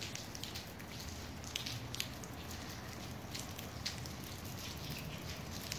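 Rain falling during a thunderstorm, with a steady hiss and scattered drops striking a hard surface close by in irregular sharp ticks. No thunder sounds here.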